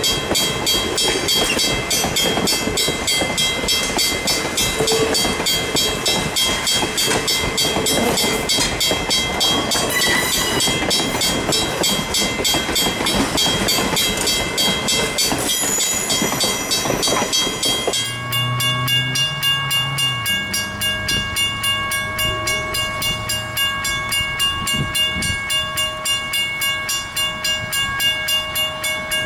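Passenger coaches and a caboose rolling past close by, their wheels clacking and grinding on the rails. After a cut about 18 seconds in, the steam whistle of ALCo-built 2-8-2 Mikado #40 blows a long, steady chord in the distance as the train approaches.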